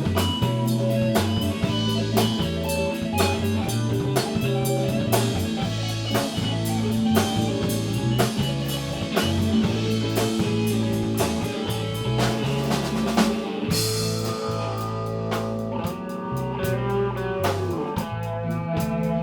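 A band playing an instrumental passage of a song: guitar over a bass line and a drum kit keeping a steady beat, with a cymbal crash about fourteen seconds in.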